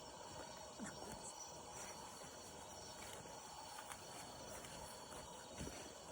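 Wood campfire crackling faintly, with a few louder pops about a second in and near the end.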